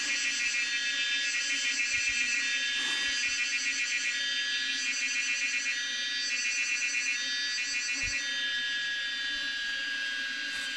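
Honeybee swarm humming steadily around its cluster. A louder, high-pitched pulsing trill comes and goes in bursts over the hum.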